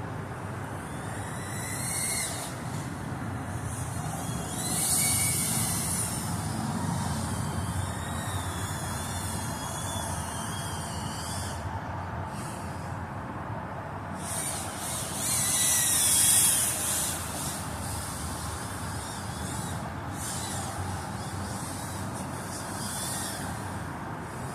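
Pavo20 cinewhoop drone in flight, its motors and propellers whining in a pitch that rises and falls with the throttle over a steady rush of air. The whine swells louder twice, about five seconds in and again at about sixteen seconds.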